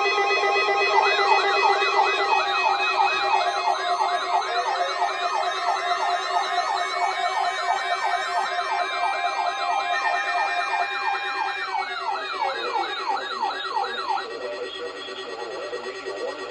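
Several electronic siren tones layered together: a fast yelping warble about three times a second, with slower rising and falling wails and steady alarm tones under it. The warble and wails stop about two seconds before the end, leaving the steady tones.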